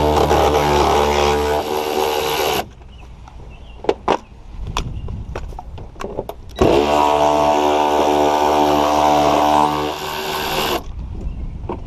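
Cordless ratchet running steadily as it spins a bolt out, stopping sharply about two and a half seconds in. A few clicks and knocks follow, then the ratchet runs again for about four seconds and stops near the end.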